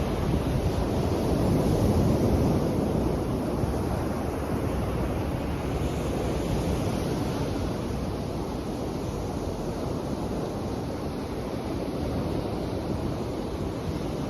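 Waves washing ashore in a steady wash of surf, a little louder about two seconds in.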